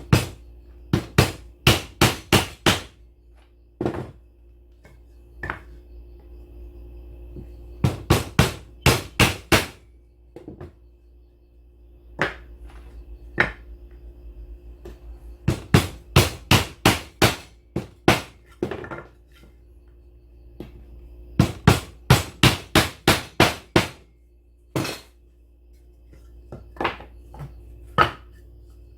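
Hammer tapping in quick runs of four to six blows, about three a second, repeated several times with single knocks in between, over a steady low hum.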